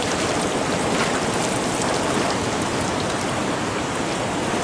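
Shallow river current rushing steadily over and through a set fishing net, with scattered small splashes.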